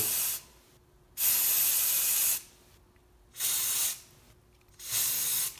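Aerosol can of coyote tan spray paint sprayed onto the water in a bucket in four bursts, the longest just over a second, laying a film of paint on the surface for hydrodipping.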